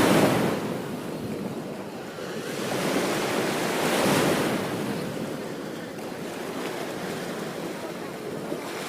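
Ocean waves breaking on a beach, the surf swelling and receding in slow surges: one wave peaks right at the start, another about four seconds in, with a steady wash between.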